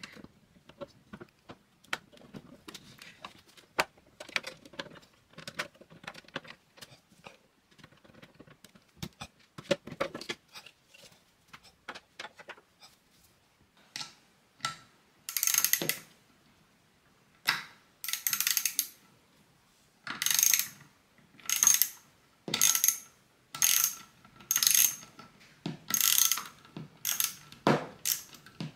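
Small clicks and taps of parts and screws being handled on an opened Kenmore 158 sewing machine. About halfway through, a screwdriver starts turning a screw, giving about ten short grating strokes roughly one a second.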